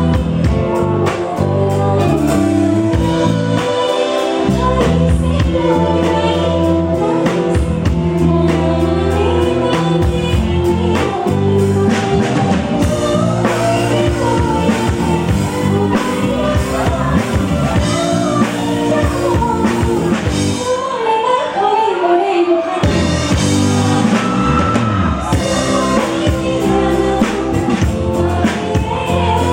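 Live band music with a woman singing a popular song, backed by drum kit and bass. The bass and drums drop out for about two seconds near the end, then come back in.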